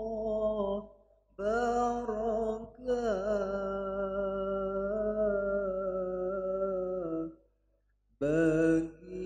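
A young man's voice singing a farewell syair (sung poem) into a microphone, in long drawn-out phrases. One note is held for about four seconds, with short breaths about one second in and near the end.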